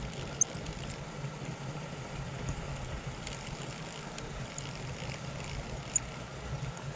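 Small reel on a miniature pen fishing rod being cranked, with faint clicks and two sharper ticks, about half a second in and near the end, over a steady low hum.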